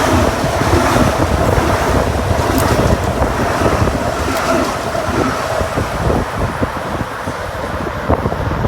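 A train rolling past with a low rumble, wind buffeting the microphone. A faint high ringing tone drops out about a second in, and the noise eases toward the end.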